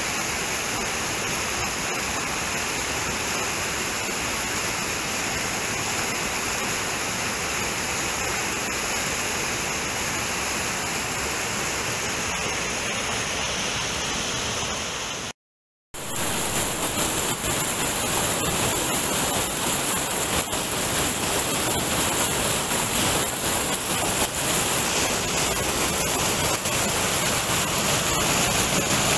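Stream water rushing down small cascades over boulders in a steady, even rush. It cuts out for half a second about halfway through, then comes back louder and hissier, close to a chute of white water.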